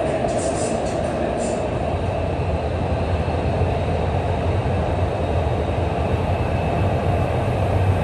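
Metro train running, heard from inside the passenger car: a steady rumble and hum of wheels and running gear, with a low drone that grows stronger over the second half.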